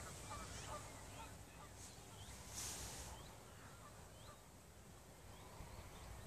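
Faint, scattered short calls of distant birds over a low background rumble, with a brief hiss about two and a half seconds in.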